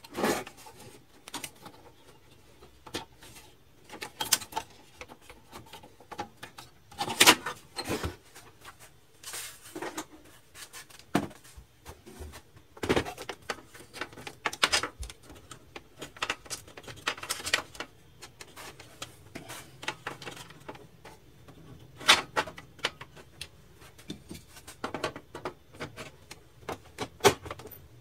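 Irregular clicks, knocks and light scrapes of the plastic and metal parts of an HP LaserJet Pro MFP M125a laser printer being handled during repair work, some sharp and loud, others faint.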